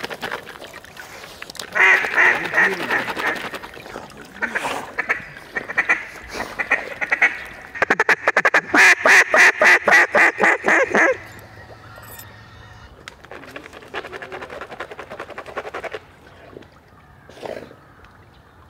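A duck call blown in runs of quacks imitating a mallard hen. The loudest run, about two-thirds of the way through, is a fast string of about seven notes a second, and a softer run follows.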